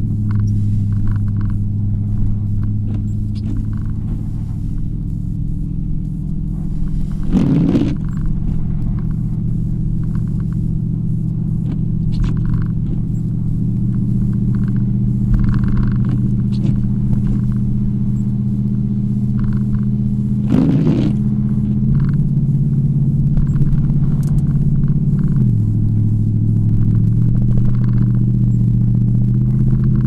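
Vehicle engine and road noise heard from inside the cab while driving: a steady low drone whose pitch steps a few times as the engine speed changes, dropping sharply near the end. There are two brief knocks, about a quarter of the way in and two-thirds of the way in.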